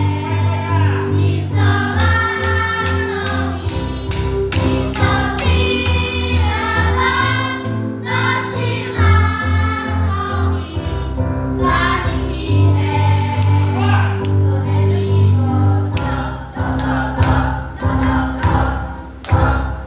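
Music with a group of voices singing together, choir-like, over sustained low notes.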